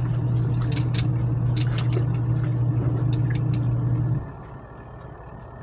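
Costway twin tub washing machine's wash motor running its agitator with a steady low hum, then stopping about four seconds in as the wash tub pauses between turns. Light clicks and sloshing ride over the hum.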